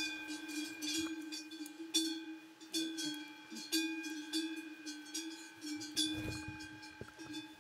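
Cowbells on cattle clanking and ringing irregularly, struck over and over as the animals move, with one deep bell tone sounding throughout.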